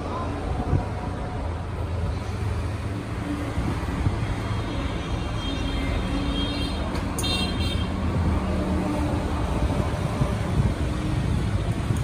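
Steady rumble of road traffic, with short horn toots now and then and one sharp, high sound about seven seconds in.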